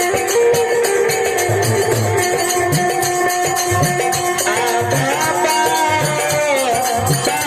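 Folk music: a held, wavering melody line over a regular low drum beat, with a shaken rattle keeping time.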